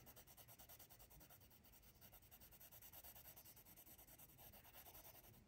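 Faint, quick strokes of a colored pencil shading on paper, about four or five a second.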